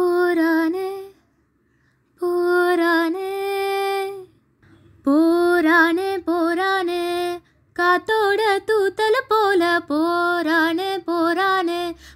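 A woman singing unaccompanied, with no instruments. She holds a few long notes, then moves into quicker phrases with wavering pitch ornaments, with short pauses between phrases.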